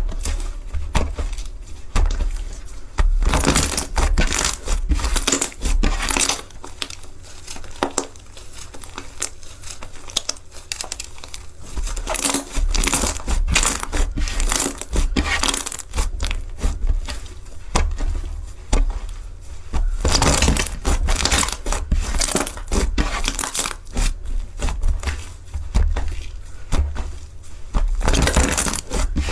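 Slime being squeezed and pressed by hand, a dense run of crackling, popping clicks, with louder stretches a few seconds in, about twenty seconds in and near the end.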